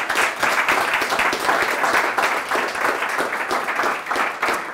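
An audience applauding: many hands clapping in a dense, steady stream.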